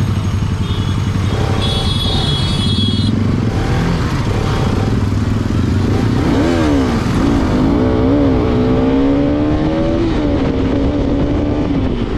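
Motorcycle engines running in traffic. Over the second half, one engine's note rises and falls several times as it revs and accelerates.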